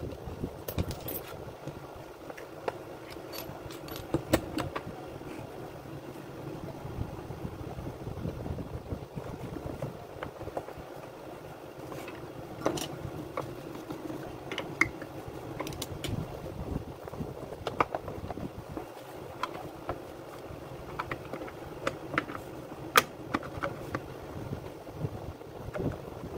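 Parts of a Makita UC4551A electric chainsaw being handled and fitted together: scattered clicks and knocks of plastic housing and metal pieces over a steady background noise.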